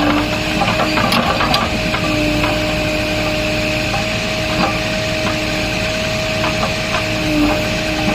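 JCB excavator running: a steady engine sound with a held whine, a lower tone that comes and goes, and scattered knocks and clanks.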